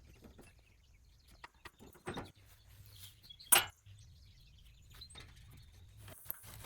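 Scattered light clicks and knocks over a faint low hum, with one sharp, loud knock about three and a half seconds in.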